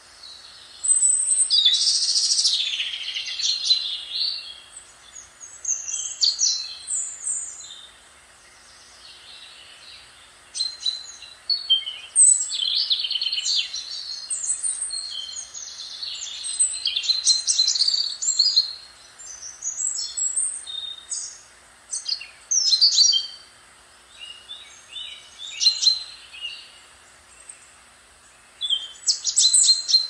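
Songbirds singing in quick chirps and trills, phrase after phrase, the loudest burst about a second in, over a faint steady wash of surf.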